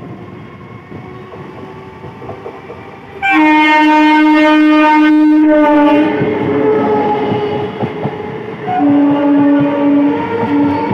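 Indian Railways EMU local train running past along the platform, its wheels rattling and clattering over the rail joints. Its horn sounds one long blast of about three seconds, the loudest sound, then a second, shorter blast near the end with a brief break in it.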